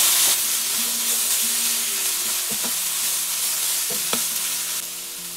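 Sliced lamb and garlic sprouts sizzling in a hot pan over high heat while a spatula stirs and tosses them, with a few scrapes of the spatula against the pan. The sizzle is loudest at first and eases near the end.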